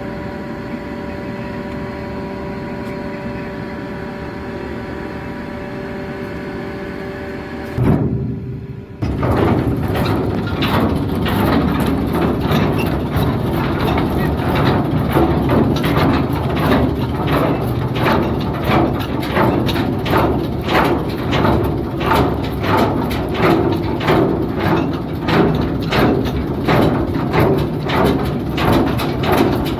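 Ship's machinery hum with steady tones, which breaks off about eight seconds in. It gives way to the anchor windlass paying out the anchor chain as the anchor is let go: a loud, steady rhythmic clanking of chain links, a few knocks a second.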